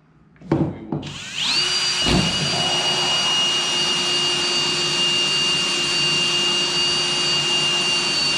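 Cordless drill with a hole saw cutting through the plastic side of a kayak. After a couple of brief knocks, the drill starts about a second in, its high whine rising into a steady pitch that holds.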